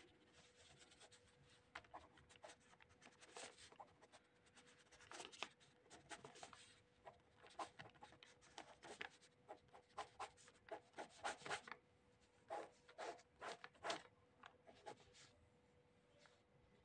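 Ballpoint pen scratching across lined notebook paper in quick, irregular writing strokes, quiet overall, thinning out near the end. A faint steady hum lies underneath.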